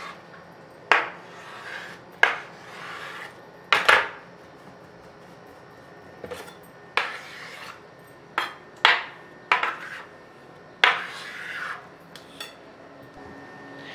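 A kitchen knife and hands working a log of dough on a wooden table top: about ten sharp, scattered taps and knocks, some with a brief metallic ring, as the dough's ends are trimmed and shaped.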